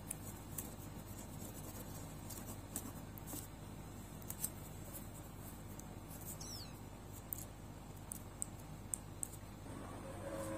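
Faint scattered clicks and light rustling of dry bay leaves and paper being handled on a tabletop, over a low steady hum. There is one short falling squeak a little past the middle.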